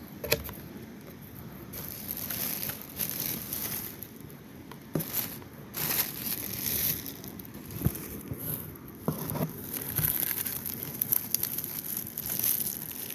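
Packaging crinkling and tearing as a parcel is opened by hand, in irregular rustling bursts with a few sharp clicks.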